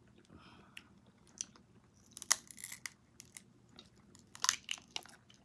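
Close-up eating sounds: king crab leg shells crunching and cracking as they are broken open by hand and chewed, with scattered sharp cracks. The loudest come at about two seconds and four and a half seconds in.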